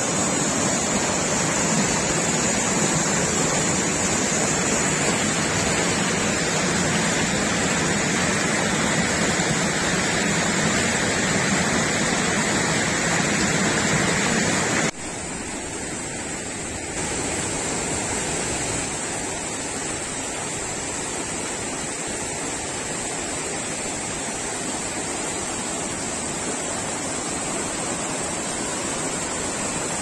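Steady rush of white water pouring over and around river boulders in a rocky stream's rapids. About halfway through it drops abruptly to a quieter rush, which grows somewhat louder again a couple of seconds later.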